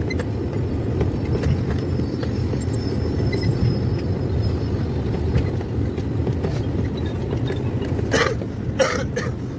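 Steady low rumble of a vehicle travelling on a rough road, with two short harsh sounds near the end.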